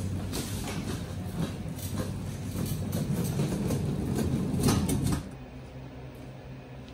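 A loaded wire roll cage cart (a delivery rotator) rolling across the concrete floor close by, its casters rumbling and the metal cage rattling. It stops suddenly about five seconds in, leaving a steady low hum.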